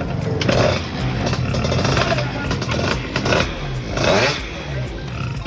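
Scooter (pasola) engine running and being revved several times, its pitch rising and falling with each blip of the throttle. It is being tested after its leaking cylinder was brazed and the engine tuned up.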